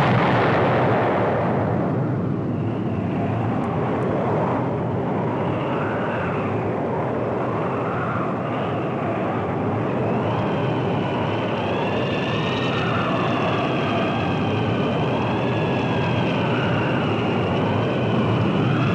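A large explosion: a sudden blast, then a long continuous rumble that eases slightly over the first few seconds and then holds steady. Faint wavering, whistle-like tones rise in over it from the middle on.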